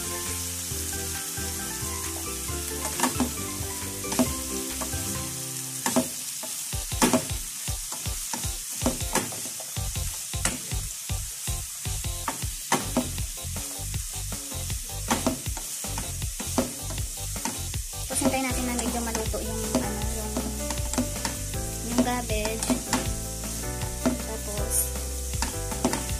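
Shredded cabbage sizzling in a frying pan while being stirred and tossed with a wooden spatula. The spatula scrapes and clicks against the pan, with the strokes coming thick and fast in the middle.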